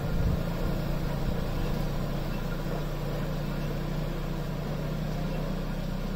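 TAFE 45 DI 4WD tractor's diesel engine running steadily as it pulls a loaded trailer away up a stone-paved hill track, easing off a little in the first couple of seconds and then holding level.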